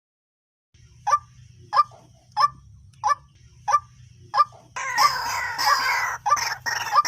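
White-breasted waterhen calling: six sharp, evenly spaced notes about every two-thirds of a second, then from about five seconds in a loud, continuous, harsh run of calls.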